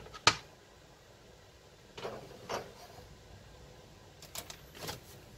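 Kitchenware being handled on a stovetop: a sharp knock about a third of a second in, then a few softer knocks and scrapes.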